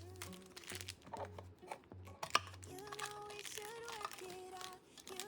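Crinkling and clicking of plastic being handled, over soft background pop music whose melody comes in about halfway through.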